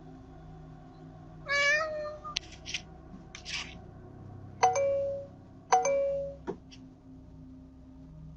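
A cat meowing at a door, picked up by a doorbell camera's microphone: a wavering meow about a second and a half in, brief scratchy noises, then two shorter, louder calls about a second apart, over a faint steady hum.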